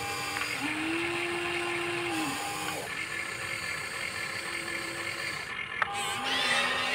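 Huina remote-control toy excavator's electric motors whining in four separate spurts as the boom and bucket move. Each spurt is a steady hum that starts and stops at a slightly different pitch, and a sharp click comes near the end.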